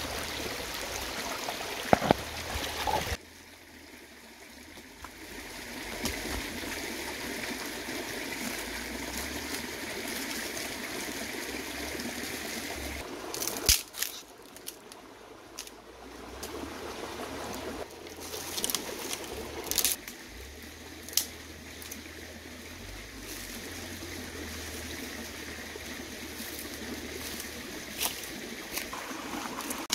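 A small stream trickling steadily, with a few short, sharp knocks and snaps over it.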